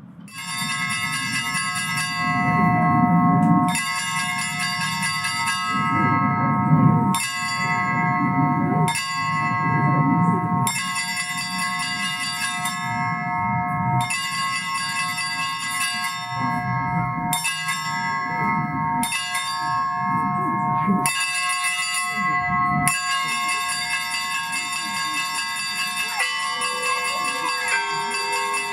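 Russian Orthodox church bells rung by hand: several bells of different pitches struck in rhythm, with the high small bells ringing on over heavier, lower strikes every second or two. The peal begins about a second in, and the bell pattern changes near the end.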